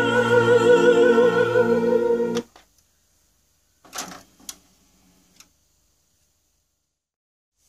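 Operatic soprano singing with wide vibrato over accompaniment, played back as music; it cuts off abruptly about two and a half seconds in. A few faint short knocks follow a little later, then silence.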